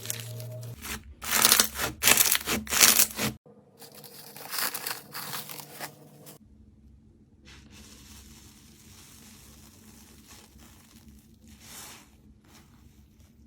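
Slime being squeezed and pulled apart by hand, giving crackling, tearing noises in a run of loud bursts from about a second in, softer ones a few seconds later, then much quieter handling after a sudden cut.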